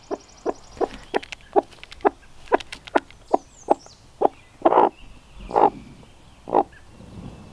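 Broody hen clucking to the chick beneath her: a string of short, low clucks, about two to three a second, then three louder, slower clucks in the second half.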